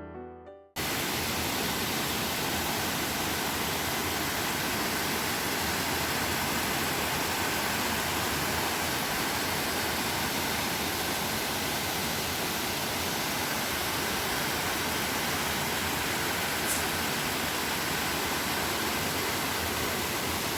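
Steady, unbroken rush of falling water from the Khandadhar waterfall.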